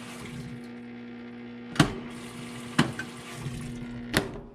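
Washing machine buzzing with a steady electrical hum, its motor powered but not turning, which the owner suspects is a jammed water pump. Sharp clicks come about two, three and four seconds in, and the hum cuts off at the last click.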